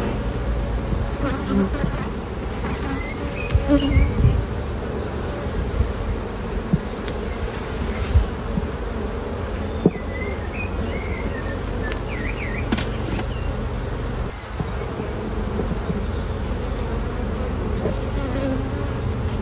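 Honeybees buzzing around an open hive: a steady, dense colony hum. A few brief knocks, from handling during the inspection, stand out over it.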